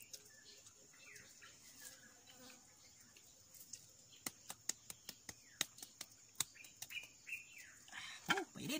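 Faint bird chirps, with a run of sharp clicks in the middle and a short voice near the end.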